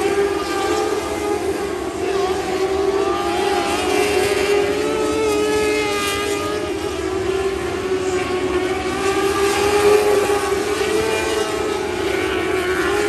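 A pack of lightning sprint cars racing on a dirt oval, their engines held at high revs. Together they make a steady, high-pitched engine note whose pitch wavers a little as the cars go round the track.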